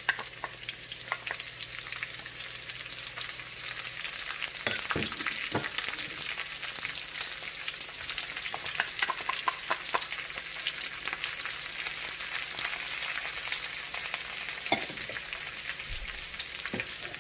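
Onions and garlic frying in hot canola oil in a pan, with a steady crackling sizzle while they are stirred, and scattered short clicks and scrapes of the utensil against the pan.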